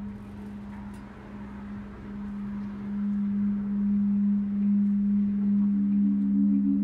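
Corrugarou corrugaphone installation: wind through ridged tubes on hand-cranked fan blades hums a steady low tone that swells louder from about two seconds in. A second, slightly higher tone joins near the end.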